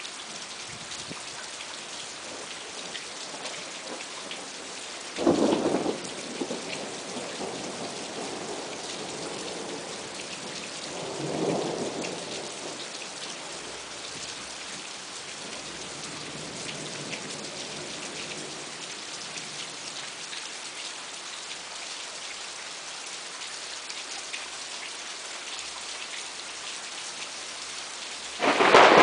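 Thunderstorm: steady rain falling throughout, with a sudden loud thunderclap about five seconds in, a softer rumble of thunder around twelve seconds, and another loud clap just before the end.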